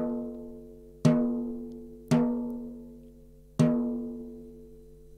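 Drumstick tapping a snare drum's batter head with four single strokes, each ringing out with a clear pitched tone that dies away. This is the tap-test for fine-tuning the head lug by lug to an even pitch of about 240 Hz.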